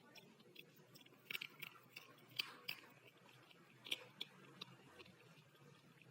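A person biting and chewing slate, with sharp, faint crunches and clicks, the strongest about a second and a half, two and a half, and four seconds in.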